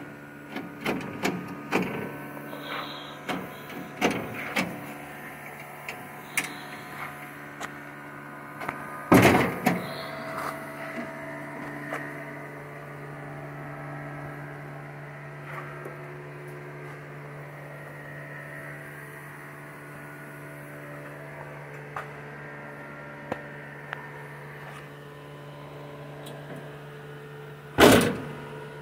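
Clicks and knocks of hand work on a car's body panels, busiest in the first dozen seconds, with two loud bangs, one about nine seconds in and one near the end, over a steady hum.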